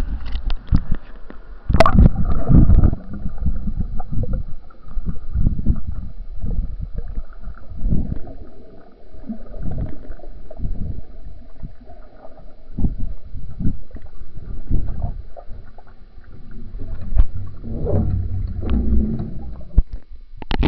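Muffled underwater sloshing, gurgling and low thumps of pool water moving against a submerged Kodak Mini camera, picked up through its microphone under the surface. A sharp splash about two seconds in marks it going under.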